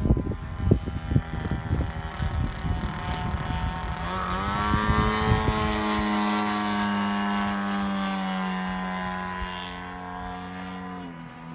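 Fokker aircraft's engine and propeller running overhead: the engine note rises about four seconds in, holds while sinking slowly, then drops sharply near the end. Wind buffets the microphone during the first few seconds.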